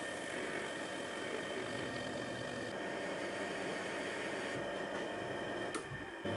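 Metal lathe running, its spindle turning a metal workpiece while a carbide-insert tool cuts it: a steady machine whir with a faint high whine. A sharp click near the end.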